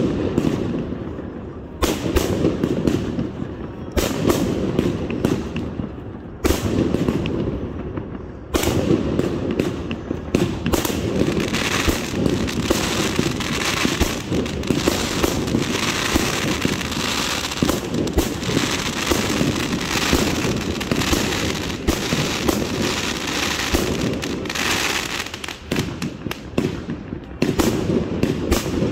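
Aerial fireworks launching and bursting overhead: a rapid string of bangs and pops. There are separate volleys in the first few seconds, then an almost unbroken barrage from about a third of the way in that thins out near the end.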